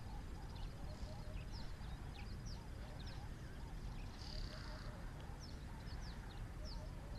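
Several wild birds chirping and calling: many short, quick-falling high notes, a run of repeated lower notes, and one harsher call about four seconds in, over a steady low rumble of outdoor background noise.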